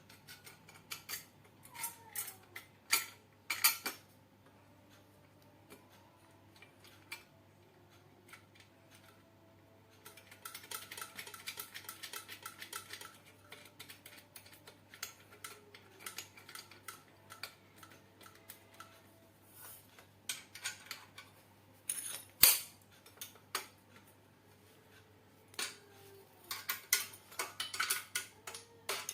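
Metal parts and tools clinking and tapping during hand assembly of a grinder. Scattered clicks, a quick run of small clicks about ten seconds in, and one sharp knock a little past twenty seconds in.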